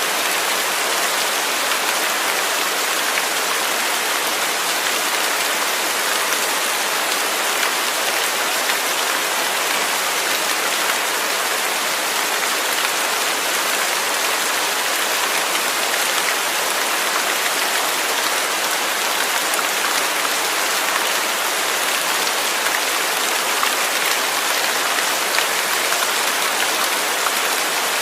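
Steady rain without thunder: an even, unbroken hiss of falling rain with fine patter of drops.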